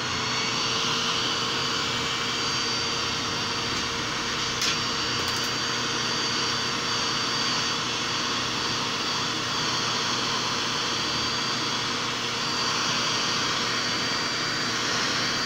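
Hand-held hair dryer running steadily, its motor whine held over a rush of air, used as a heat source to soften the glue of a cracked phone screen. There is one small click about four and a half seconds in.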